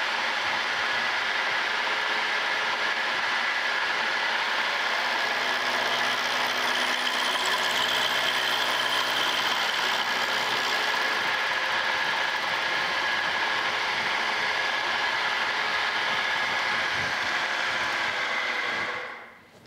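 Vertical milling machine's spindle running with an end mill cutting a wrench flat across a steel table-saw arbor, a steady machine whine with the cut heaviest about halfway through. About a second before the end the spindle is switched off and winds down.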